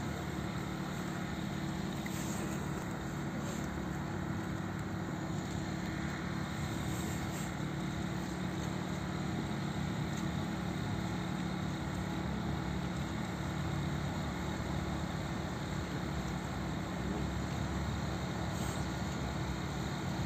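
Steady low hum of running machinery, even in level throughout, with no other event standing out.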